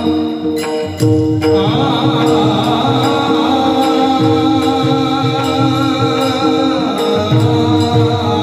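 Warkari bhajan: a group of men singing a devotional melody together, with brass taal hand cymbals struck in a steady beat and a drum beating underneath. The fuller sound comes in about a second and a half in.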